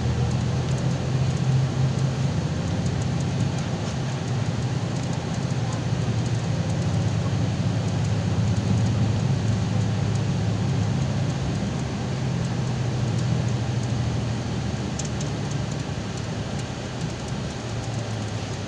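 Cabin noise inside a Golden Dragon XML6125 city bus on the move: a steady low engine drone with road and tyre noise, easing a little near the end.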